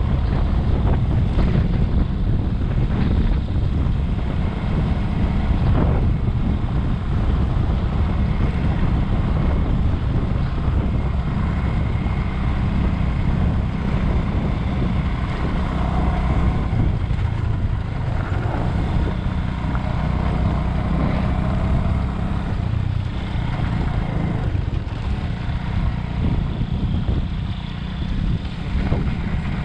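Bajaj Avenger 220 motorcycle's single-cylinder engine running steadily under way, mixed with deep wind rumble on the microphone.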